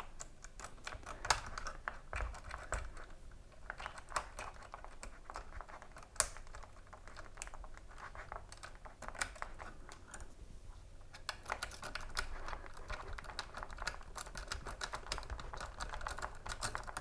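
Wave rake being worked in and out of a ThinkPad docking station's wafer lock under light tension from a turning tool: a faint run of small metallic clicks and scratches, turning into denser, quicker rattling about two-thirds of the way through as the lock is raked toward opening.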